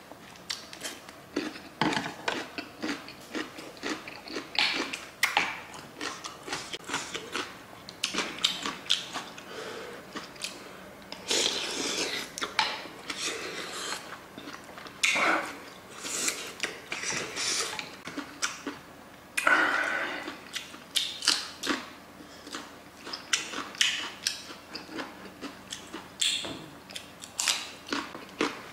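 Close-miked mukbang eating: chewing and biting into sundae gukbap and kimchi, with chopsticks and a wooden spoon clicking against an earthenware pot. There are longer slurps of hot broth about eleven seconds in and again near twenty seconds.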